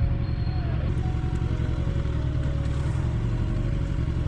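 Kawasaki Ninja 1000's inline-four engine running steadily as the motorcycle cruises, with a dense low rumble of engine and road noise.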